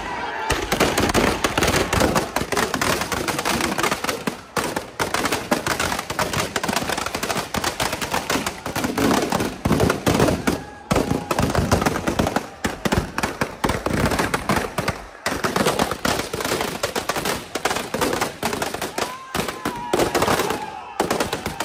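Firecrackers packed inside a burning Ravana effigy going off in rapid, continuous volleys of bangs and crackles.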